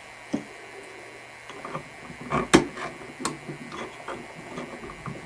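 Irregular light clicks and knocks of hands and a tool working on a bathroom faucet's fittings, a dozen or so sharp taps with the loudest about halfway through.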